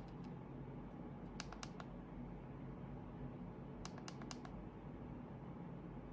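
Faint sharp clicks from the Asus ROG Delta II headset's ear-cup control button being pressed, in two quick clusters of three or four clicks: one about a second and a half in and another about four seconds in. The multi-presses change the playing track.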